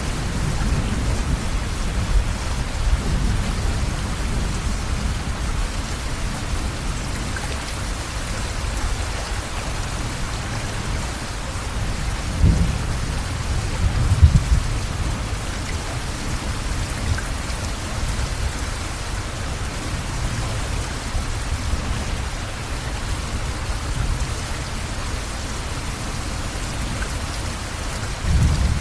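Steady rushing noise of heavy rain and fast-flowing floodwater, with a low rumble underneath and a couple of louder bumps about halfway through.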